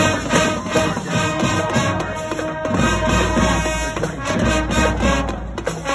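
High school marching band playing an up-tempo pep tune in the stands: horns holding pitched lines over a steady drum beat.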